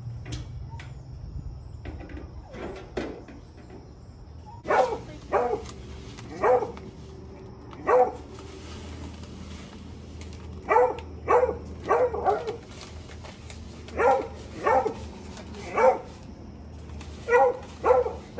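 A hound barking: about a dozen short, sharp barks in irregular clusters of two to four, starting about five seconds in.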